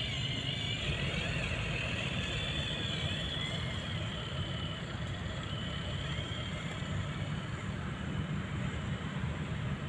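Remote-control model truck running with a steady low rumble, and a wavering high whine that fades out about three seconds in.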